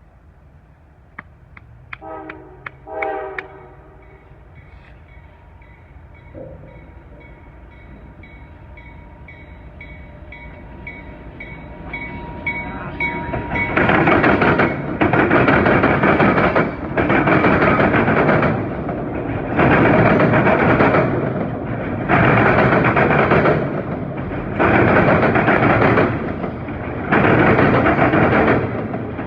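Freight train horn giving two short blasts, then the train's approach growing louder. About fourteen seconds in, the CSX auto rack train passes close by: a loud rumble that swells and dips about every two and a half seconds as each long auto rack car goes by.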